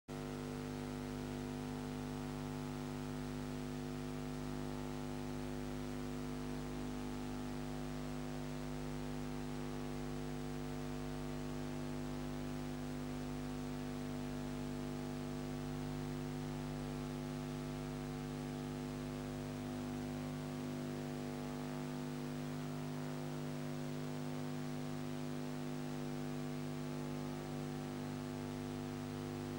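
Steady electrical mains hum: several steady tones over a light hiss, unchanging throughout.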